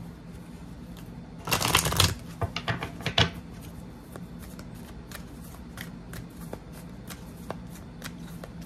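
A deck of tarot cards shuffled by hand: a quick burst of cards riffling together about a second and a half in, a few sharper card snaps just after, then light, scattered card clicks as the deck is handled.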